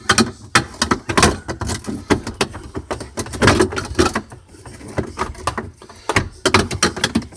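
Irregular knocks, clicks and clatters of plastic interior panels being handled and fitted into a refrigerator compartment.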